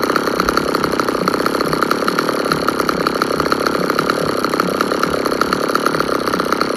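Chainsaw engine running at a steady idle, with a fast, even firing rhythm and no revving.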